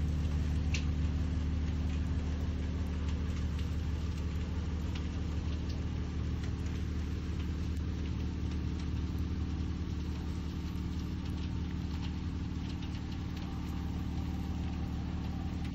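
A steady low engine drone, like a motor idling, with no change in pitch.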